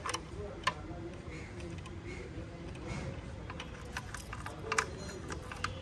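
Scattered light clicks and taps of hands working a small oil can on a two-wheeler part, over a steady low background noise.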